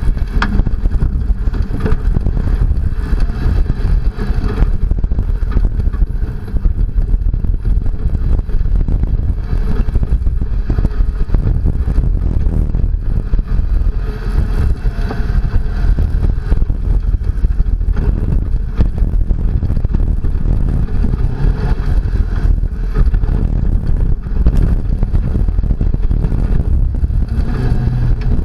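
Second-generation Toyota Tacoma prerunner driving hard over a rough dirt trail: a continuous low rumble of engine and tyres on dirt, broken by constant jolts and rattles as the truck bounces over the ruts.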